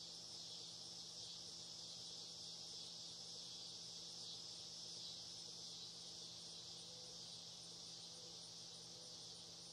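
Faint, steady insect chorus: a high-pitched drone that never breaks.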